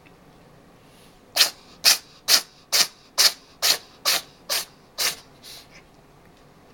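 A cat sneezing in a rapid run: about nine sharp, hissy sneezes roughly two a second, then a fainter last one.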